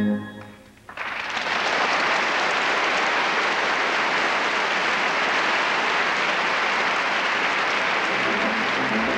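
Orchestral music ends with a final chord, and about a second later a theatre audience breaks into steady applause that carries on. Near the end the orchestra starts up again faintly under the clapping.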